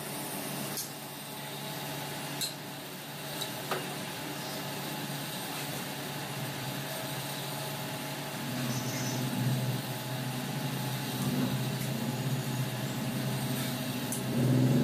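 Knife cutting raw chicken on a stone counter, with a few sharp taps of the blade near the start, over a steady low hum that grows louder about halfway through.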